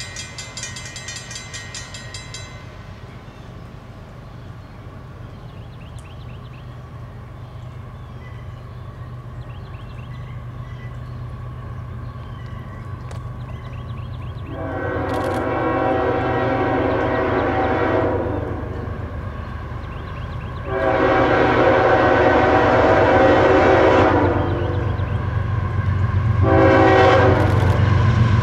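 CSX GE ES44AH locomotive's Nathan K5HL five-chime horn sounding the grade-crossing signal: two long blasts, then a short one near the end. Beneath it is the low rumble of the approaching diesel train, growing louder.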